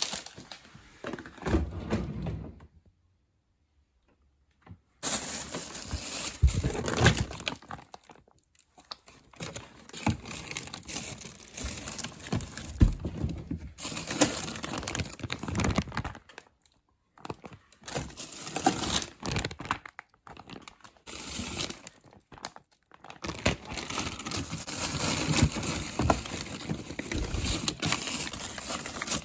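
Plastic food packaging crinkling and rustling as bags and packs are handled, with small knocks and clicks throughout. The sound drops out entirely for about two seconds near the start.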